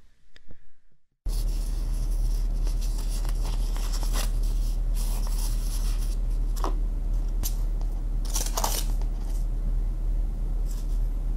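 A paper coffee filter being folded and handled, crinkling a few times, over a steady loud hiss with a low hum that starts abruptly about a second in.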